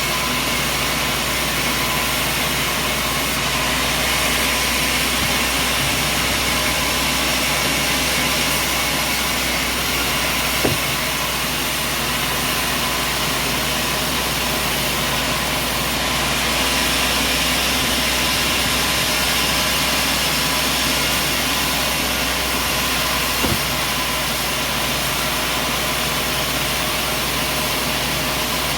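An engine running steadily at a constant speed, with two short knocks, one about 11 seconds in and one about 23 seconds in.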